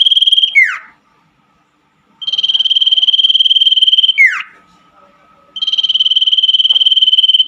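Common iora (cipoh) song: a fast buzzy trill on one pitch held for about two seconds, then a quick falling whistle, repeated three times with short gaps.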